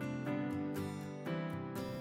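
Soft background music of plucked notes at a steady pace.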